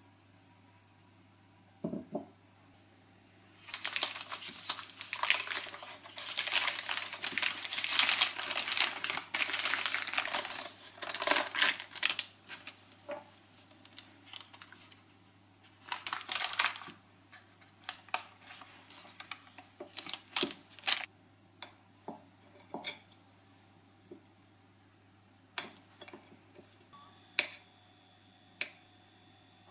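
Kitchen preparation sounds: several seconds of rustling and crinkling like packaging or a paper bag being handled, then scattered light clicks and taps of utensils or containers.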